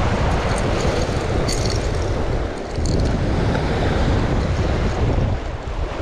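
Sea waves washing and breaking over shoreline rocks, a steady rushing surf, with wind buffeting the microphone in a low rumble.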